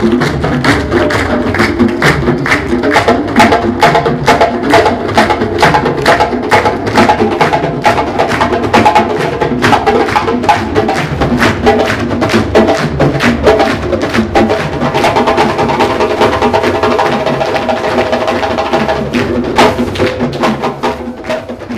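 An ensemble of djembe hand drums playing a fast, dense rhythm together, with steady sustained tones joining in during the second half; the sound fades near the end.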